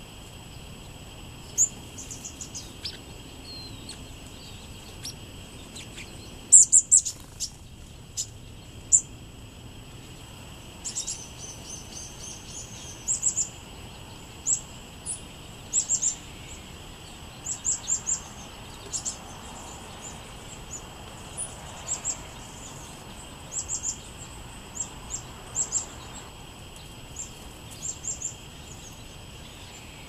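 Small songbirds chirping: many short, high chirps, singly and in quick runs of two to four, with the loudest cluster about a third of the way in, over a steady high hiss.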